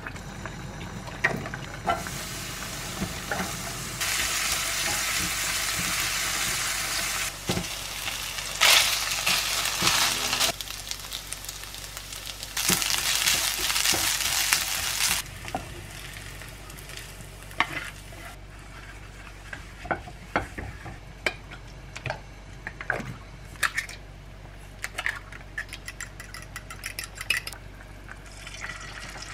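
Diced onion and ham frying in a ceramic-coated pan, sizzling in several stretches of a few seconds while a wooden spatula stirs them. Light clicks and taps of utensils come through the second half.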